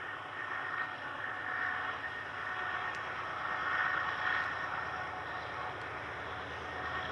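Freight train running on the mountain grade: a steady rushing noise that grows gradually louder toward the middle.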